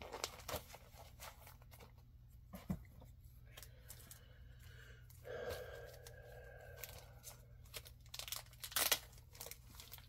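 Clear plastic comic-book sleeves crinkling and rustling as comics are handled and sorted, a run of scattered crackles with the loudest near the end.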